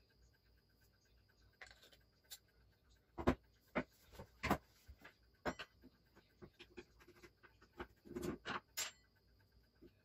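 Metal vacuum-cleaner motor parts being handled and set down on a wooden table: a string of irregular clicks and knocks beginning about a second and a half in, the loudest about three seconds in.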